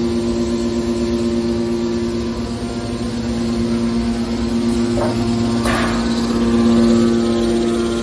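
Hydraulic power unit of a mini scrap metal baler running: the electric motor and hydraulic pump give a steady hum, with a couple of brief knocks a little past halfway.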